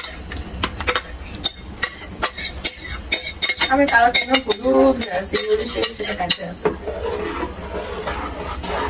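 Metal spoon clicking and scraping against a bowl and an aluminium pan as mango purée is scraped out and then stirred in the pan. The sharp clicks come quickly over the first few seconds and thin out later.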